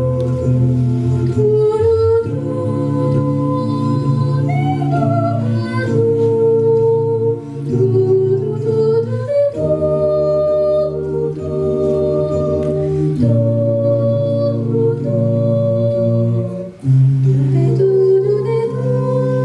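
Choir singing a cappella in several parts, holding chords that change every second or two, with a brief break about 17 seconds in.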